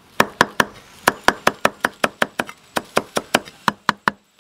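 Steel cleaver chopping coriander and green onions on a thick round wooden chopping block: quick, even knocks, about five a second, with a brief pause about a second in.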